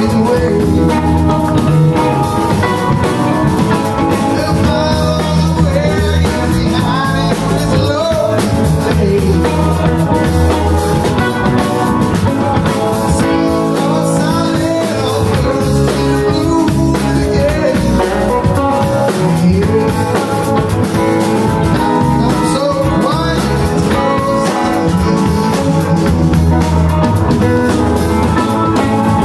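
A live rock band playing loudly: electric guitars, keyboard and drum kit.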